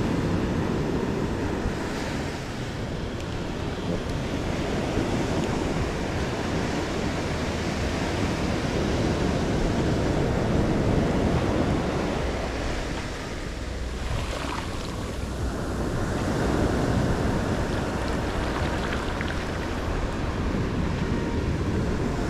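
Ocean surf washing onto a sandy beach, a steady rush that slowly swells and eases, with wind buffeting the microphone.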